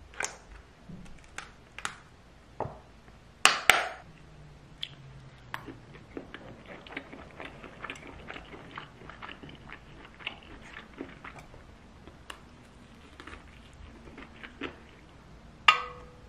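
Handling sounds of a plastic squeeze bottle and metal chopsticks against a stainless steel food tin: scattered clicks and knocks, then a run of light tapping and scraping as sauce is spread over the food. Near the end a loud knock leaves a short metallic ring.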